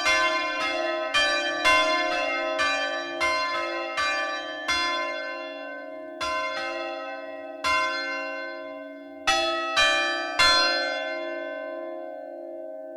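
Ring of three Mears church bells (tenor about 231 kg, in C) rung full-circle by hand. Strokes come evenly for about the first five seconds, then thin out, with three last strokes in quick succession around ten seconds, after which the bells' hum fades away.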